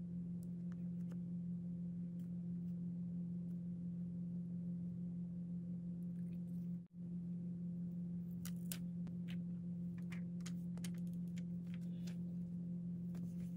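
A steady low hum with a couple of overtones, cutting out for an instant about halfway through. Faint crinkles and ticks of sticker flakes and paper being handled come in the second half.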